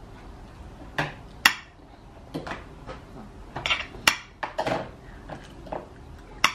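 A metal spoon clinking and scraping against a dish in about seven separate, irregular clinks as food is scooped up for feeding.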